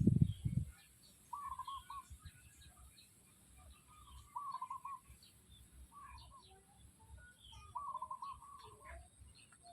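Chickens calling: a short, wavering call repeated about every second and a half, over many small high chirps. A brief low rumble comes at the very start.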